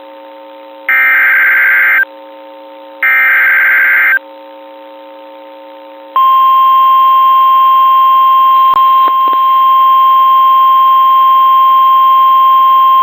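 NOAA Weather Radio Emergency Alert System signal. Two SAME digital header bursts, each about a second long and a second apart, are followed by a pause. About six seconds in, the steady 1050 Hz warning alarm tone starts, with a couple of brief clicks. The signal announces a new warning, here a flash flood warning.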